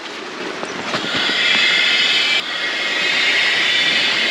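Air rushing from a squeezed pump sack into an Itiwit Packraft 500 inflatable packraft during inflation: a steady hiss that builds over the first second, drops sharply about halfway through and then carries on.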